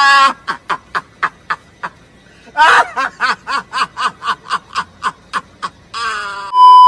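Laughter in two long runs of rapid, even 'ha-ha-ha' pulses, followed near the end by a short hiss and then a loud, steady electronic beep.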